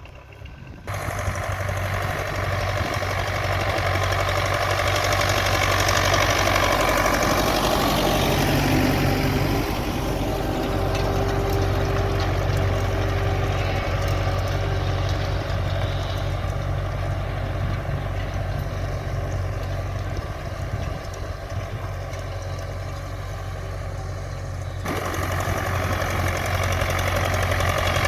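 A tractor's diesel engine running steadily, with abrupt changes in the sound about a second in and again near the end.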